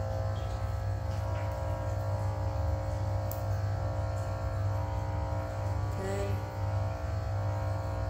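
Background music: a steady drone of many held tones with no break.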